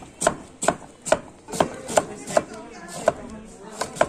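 Green guava being sliced on a wooden chopping board with a large blade hinged at one end: a run of about nine sharp chops, roughly two a second, each as the blade cuts through the fruit and strikes the wood.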